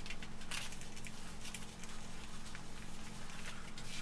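Handling noise: a cotton tea towel being smoothed and rearranged over a door card, a few soft rustles and light knocks over a faint steady hum.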